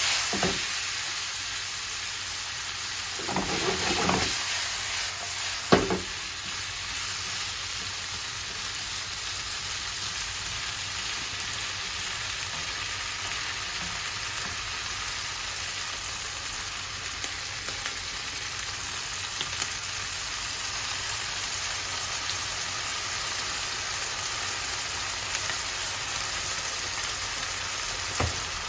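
Food sizzling steadily in a frying pan, with a spell of stirring about three to four seconds in and one sharp knock of a utensil against the pan about six seconds in.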